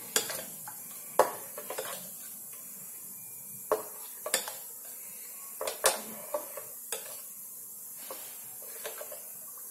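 Steel spoon stirring thick yogurt raita in a stainless steel bowl, with irregular sharp clinks and scrapes of the spoon against the bowl's sides and rim.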